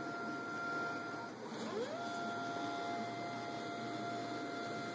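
Stepper motors of the mUVe 1 resin 3D printer's fast-moving X/Y gantry whining at a steady pitch. The whine drops and climbs back up about a second and a half in as the axis slows, reverses and speeds up again, and falls away again near the end.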